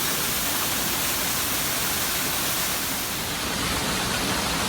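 Waterfall rushing: a steady, loud hiss of falling water with no let-up.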